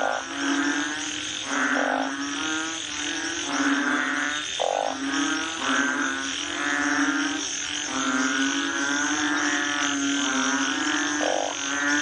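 Frogs croaking in a chorus: low, drawn-out calls repeating roughly once a second and overlapping one another, with shorter higher-pitched calls in between. A steady high hiss runs behind them.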